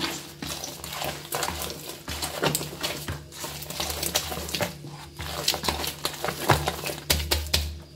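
A hand punching down risen, sticky bread dough in a plastic basin to press the air out: irregular wet squelching and slapping with many small pops.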